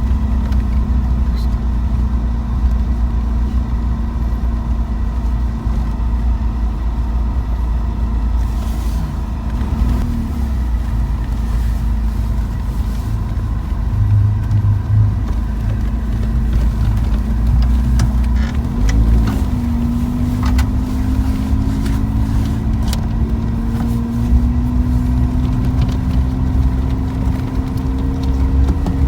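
A car driving on the road, with a steady low rumble. The engine tone rises slowly through the second half, as if the car is picking up speed.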